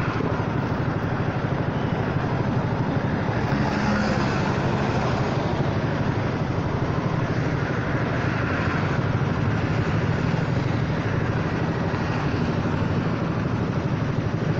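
Honda Forza 300 scooter's single-cylinder engine idling steadily while stopped in traffic, with surrounding traffic noise. The engine breathes through a baffled aftermarket exhaust.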